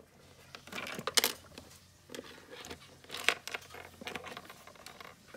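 Small plastic dollhouse toy pieces being picked up and handled by hand: irregular light clicks and rustles, with the sharpest clicks about a second in and again about three seconds in.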